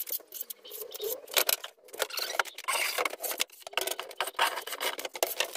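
Hand block plane shaving the edges off softwood battens: a run of short, irregular scraping strokes.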